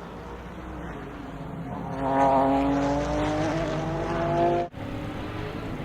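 Sports-prototype or GT race car engine accelerating past on track, its pitch climbing steadily as it pulls out of the corner and gets loud about two seconds in. The sound drops out abruptly for an instant near the end, then engine noise resumes more quietly.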